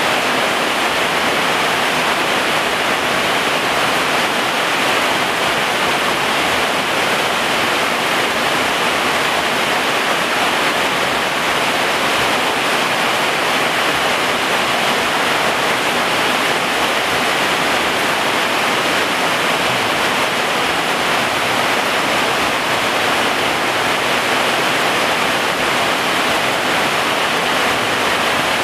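Heavy rain falling steadily: a dense, even hiss with no let-up.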